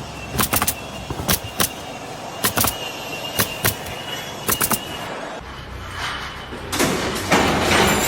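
Irregular knocks and clanks of construction work, with a thin high whine in the middle and a scraping hiss that builds near the end.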